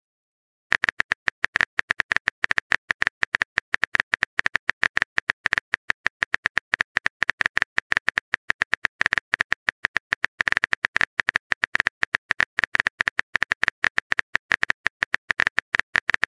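Rapid run of keyboard typing clicks, a texting app's typing sound effect, several clicks a second with brief pauses.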